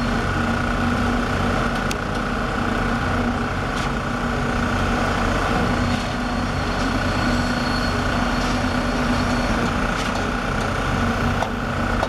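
Several concrete poker vibrators' drive motors running together in a steady drone, a hum over a low rumble, as their needles consolidate freshly poured slab concrete.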